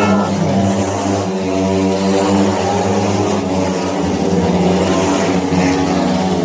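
Speedway motorcycles racing, their 500 cc single-cylinder engines running at high revs, with the pitch rising and falling as the bikes accelerate and pass.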